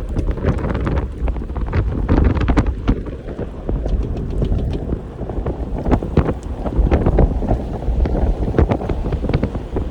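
Strong storm wind buffeting the microphone: a loud, continuous low rumble with frequent short crackles and taps throughout.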